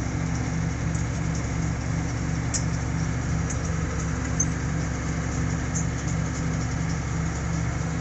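Tractor engine running steadily under light load, with a regular low throb and a few faint clicks, heard from inside the cab.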